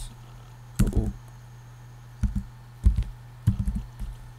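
Computer keyboard keys being typed in several short runs of keystrokes with pauses between them, over a steady low hum.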